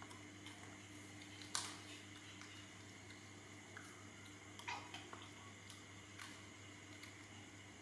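Faint snaps and crackles of lotus seeds being broken out of fresh green lotus seed pods by hand, the sharpest about a second and a half in and a few more near five seconds, over a steady low hum.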